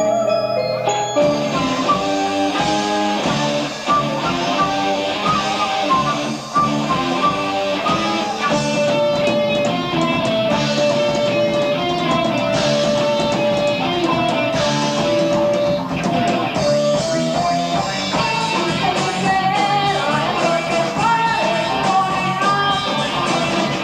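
Live progressive rock from an amateur tape recording: a full band with electric guitar, keyboards, bass and drums, in which the guitar stands out, with a long held lead note partway through.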